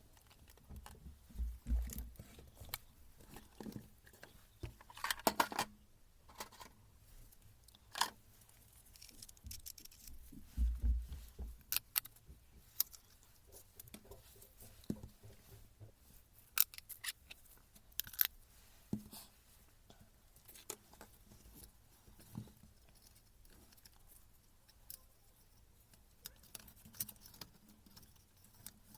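Irregular clicks and short metallic clinks of hand tools and small metal parts being handled, with a couple of dull knocks about two and eleven seconds in.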